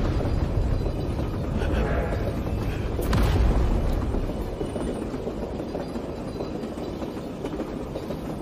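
Low, steady rumble of a train running on the rails, with a sudden boom about three seconds in; the rumble then slowly fades.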